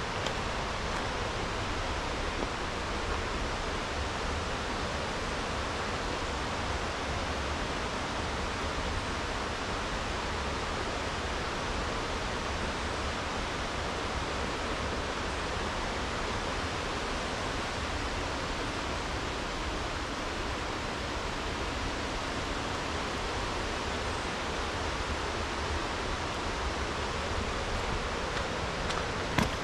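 Steady rushing of flowing water, an even unbroken noise with no change in level, with a single short click near the end.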